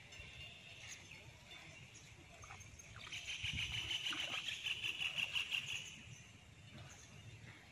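Tall grass rustling and swishing against legs and clothes as someone wades through it, louder for a few seconds in the middle.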